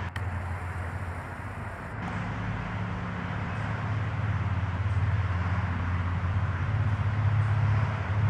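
Steady low engine hum of motor traffic, growing louder through the second half.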